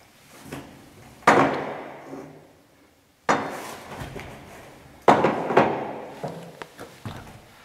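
Metal carpenter's square knocked and set down against the corrugated metal floor and wear band of an empty trailer, three loud clanks about two seconds apart, each ringing on in the hollow box, followed by a few lighter knocks.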